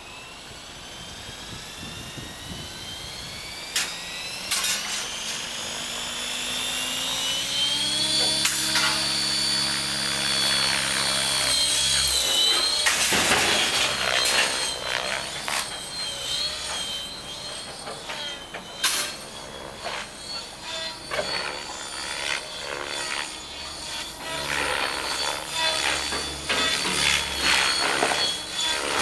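Electric radio-controlled helicopter (Rave ENV) spooling up, its motor and rotor whine rising steadily in pitch over the first several seconds. The whine then holds level briefly, and afterwards wavers up and down as it flies.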